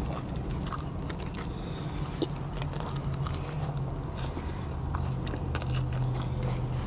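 A person biting into and chewing a double burger with bacon: close-up wet chewing with small crunches and clicks. A steady low hum runs underneath and grows stronger about five seconds in.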